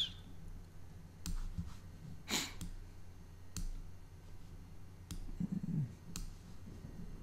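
Faint, scattered clicks of a computer mouse, about five single clicks spread a second or so apart.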